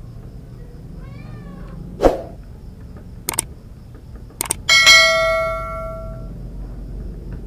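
A cat meows once, followed by a dull thump. Then two mouse-click sound effects and a bright notification-bell ding that rings out for over a second, from a subscribe-button animation.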